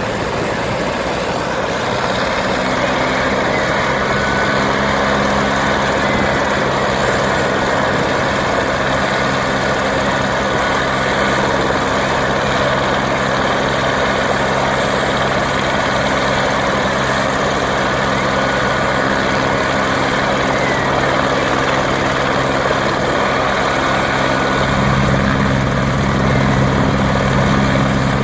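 Helicopter running on the ground with its main rotor turning: a steady loud drone with a low hum that grows stronger about 25 seconds in.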